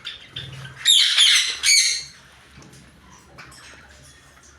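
Parrots squawking: a loud run of harsh squawks about a second in, lasting about a second, with softer chirps before and after.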